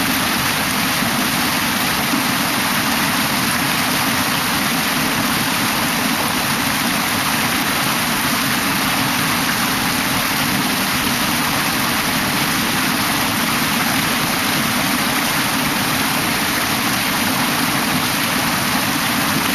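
Mountain stream water rushing over rocks: a steady, even roar of flowing water that does not change.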